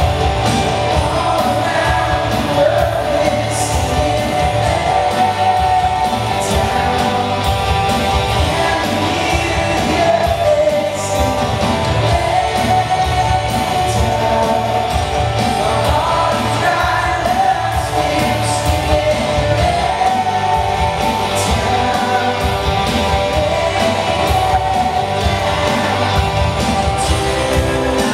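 Live band playing a song with sung lead vocals over drums and guitars, at a steady full level.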